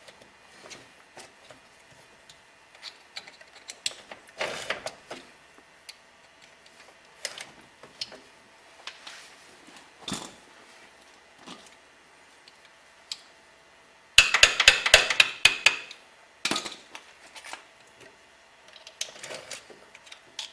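Metal clicking and rattling from a one-way clutch being spun and pushed to seat it in a G4 automatic transmission. Scattered clicks, with a burst of rapid loud clicking about fourteen seconds in.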